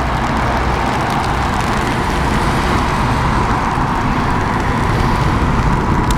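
Boeing 777F freighter's two GE90 turbofan engines at take-off thrust: a loud, steady rush and rumble that grows slightly louder.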